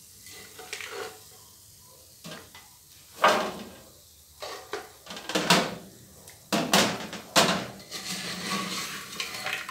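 A spoon scraping and knocking against the inside of an aluminium pressure cooker while fried pork cracklings are scooped out of the hot fat. Among the scrapes come four sharp clanks, the loudest in the second half.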